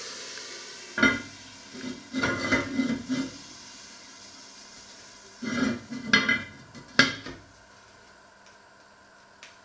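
Lid of an oval casserole pot clattering and knocking against the pot as it is set on and shifted into place, in two short bursts, about a second in and again past the middle. A steam hiss fades out at the start.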